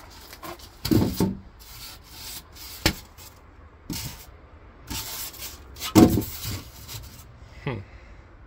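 Rigid foam insulation boards being handled and set in place: foam rubbing and scraping against foam, with several knocks and thuds, the loudest about six seconds in, and a short falling squeak near the end.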